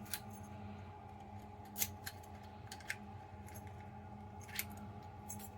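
Light metallic clicks and ticks, about six spread irregularly, of lock-picking tools working in a Bunker Hill Security hidden-shackle padlock, over a faint steady hum.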